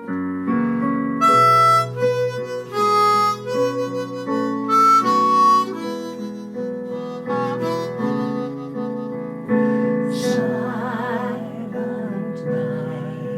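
Instrumental music: a harmonica playing a melody over sustained keyboard chords.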